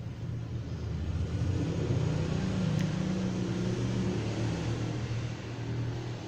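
Low rumble of a motor vehicle engine, growing louder over the first couple of seconds and easing off near the end, with a single sharp click near the middle.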